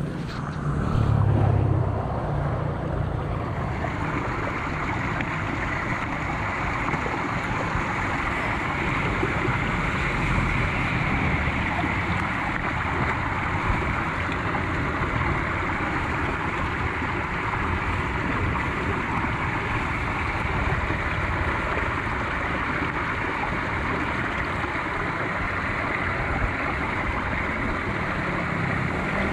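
Muddy floodwater rushing and splashing into a clogged curb drain opening as a hand pulls debris from the inlet: a steady wash of water noise. A louder low rumble, like wind on the microphone, in the first few seconds.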